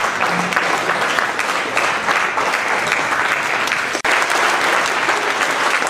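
Audience applauding: dense, steady clapping that drops out for an instant about four seconds in.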